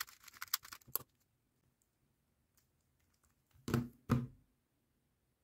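Rapid plastic clicking of a 3x3 speed cube being turned quickly by hand for about a second. A few seconds later come two short thumps, as the cube is set down and hands come down on a Speed Stacks timer.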